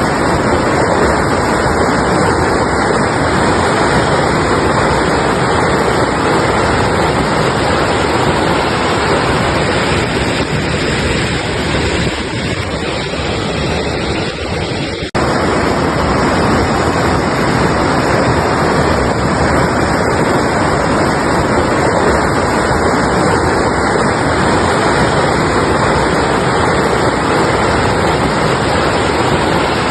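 Mountain river rushing steadily. About twelve seconds in it softens a little, then about fifteen seconds in it cuts back sharply to full strength at an edit in the recording.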